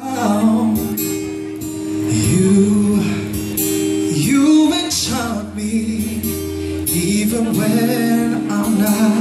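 Music: a man singing a slow, wavering melody over acoustic guitar.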